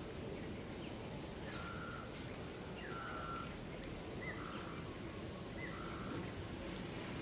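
An animal calling: four short whistled notes, each a level tone, several starting with a quick upward flick, over steady background noise.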